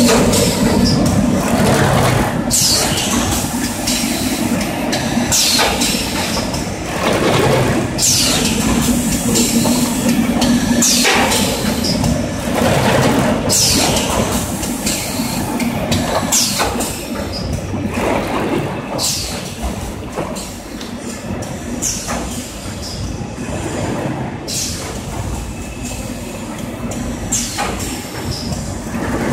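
Six-cavity PET bottle blow molding machine running: a steady hum and clattering from the preform chain conveyor, with sharp hissing bursts of air every second or two as it cycles.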